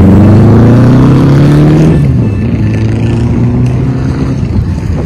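Motorcycle engine accelerating past, its pitch rising for about two seconds, then dropping suddenly as it shifts up a gear and pulling on in the next gear while fading.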